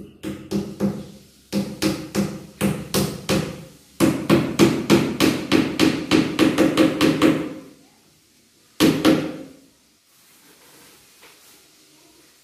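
Hammer driving nails into a wooden board on a wall frame: runs of quick, even strikes, about three to four a second, broken by short pauses, with one last short group of blows near the end.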